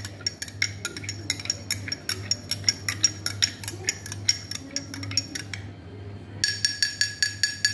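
Metal spoon stirring milk in a glass tumbler, clinking rapidly against the glass at about four clinks a second, with a brief pause a little past halfway.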